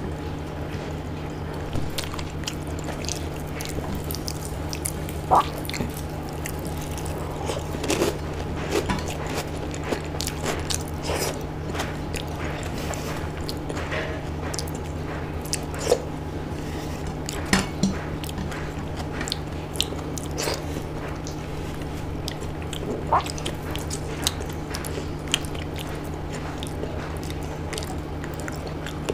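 Close-up eating sounds: chewing and wet mouth smacks of soft khichdi eaten by hand, with scattered sharp clicks from fingers and plate. A steady low hum runs underneath.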